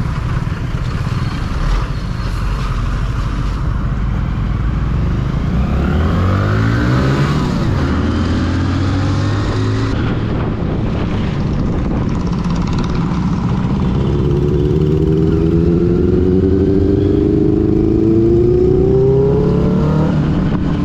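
Motorcycle engine running on the road: its pitch falls and rises again about six to eight seconds in, then climbs steadily through the last few seconds as the bike accelerates.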